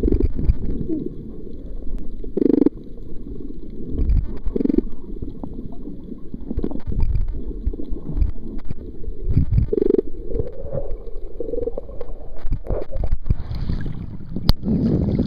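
Muffled underwater rumbling and sloshing picked up by a camera microphone held under water while snorkelling, with irregular low swells and gurgles. A single sharp click about a second before the end.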